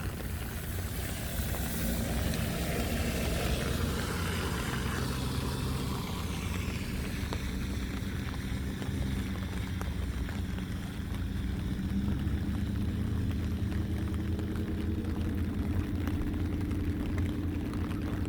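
A steady low engine drone. Early on, a passing vehicle or aircraft sweeps by with a slowly falling pitch.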